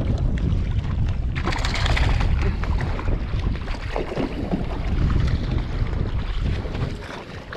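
Wind buffeting the microphone in a steady low rumble over choppy sea, with splashing from about a second and a half in as a small hooked baitfish thrashes at the surface while being reeled up to the boat.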